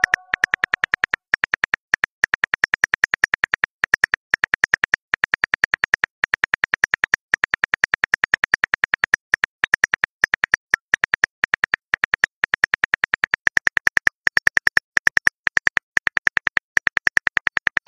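Phone keyboard click sounds, one per keystroke, in a fast even run of about six or seven a second with a few short pauses, as a text message is typed out and partly deleted.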